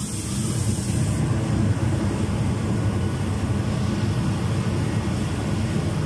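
Vacuum ironing table's suction blower motor running with a steady hum and rush of air, holding the garment down on the table. A brief hiss sounds over the first second.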